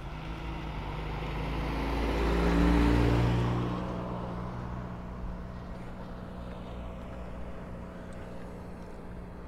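A car driving past close by on the road, its engine and tyre noise growing louder to a peak almost three seconds in and then fading away, with a steady low engine hum lingering after.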